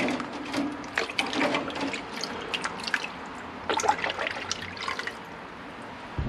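Hands sloshing and splashing through the cleaning solution in a stainless steel ultrasonic cleaner tank, with drips and frequent small clinks of metal carburettor parts as they are lifted out. A low thump near the end.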